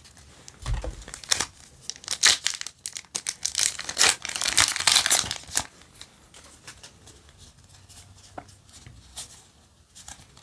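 Foil trading-card booster pack being torn open, a dense run of crinkling and tearing crackles for several seconds, followed by faint clicks of the cards being handled.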